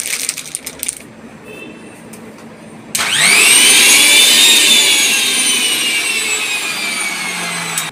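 Plastic wrapping crinkles in the first second. About three seconds in, the motor of a Sujata 900-watt mixer grinder is switched on with no jar fitted and runs with a loud high whine. The whine jumps up in pitch at switch-on, then sinks slowly, and cuts off suddenly near the end.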